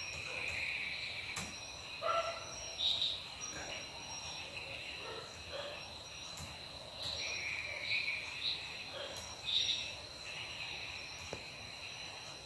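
Crickets or other insects chirping in a steady high trill, with a few faint clicks of laptop keys.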